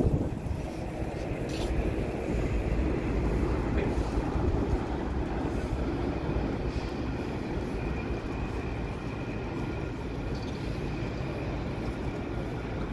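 Alstom Citadis 302 tram approaching along its track: a steady rumble with a faint high whine in the second half, over wind on the microphone.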